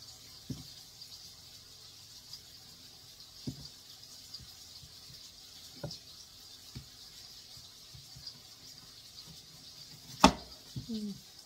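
Chef's knife slicing potato on a cutting board: scattered sharp knocks of the blade against the board, a loud one near the end, over a faint steady hiss.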